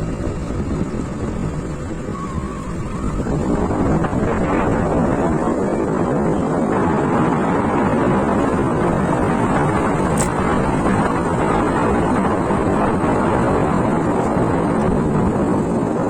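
Wind rushing over the microphone with the noise of a moving two-wheeler, growing louder about three to four seconds in and then holding steady.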